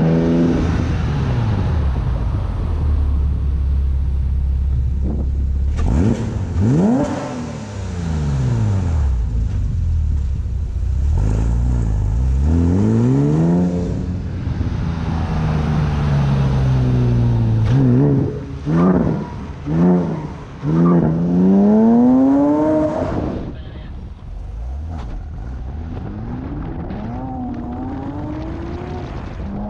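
Porsche Cayman S 3.4-litre flat-six breathing through a SOUL Performance street exhaust, revving hard over and over, its pitch climbing and falling back with each pull. Past the middle comes a quick run of short rev blips. The note then drops to a quieter, slower-rising engine sound toward the end.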